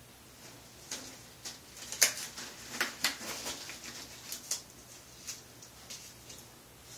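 Thin disposable glove being pulled on and handled: a run of irregular crinkles and sharp clicks, the loudest about two seconds in, dying away after about five seconds.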